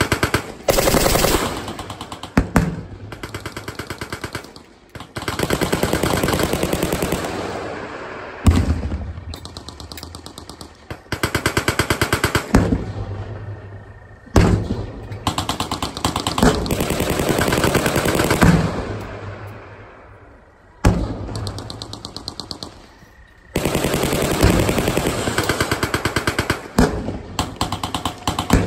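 Machine-gun fire in long, rapid bursts of several seconds each. The bursts overlap and fade, with brief breaks between them.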